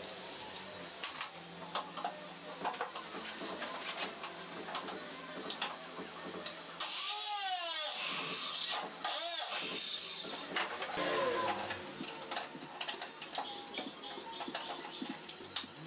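Small tools and metal parts clicking and clinking as the wiring and fittings under a dashboard are worked on. About seven seconds in there is a loud spray hiss of about two seconds, then a second shorter one, like an aerosol can being sprayed.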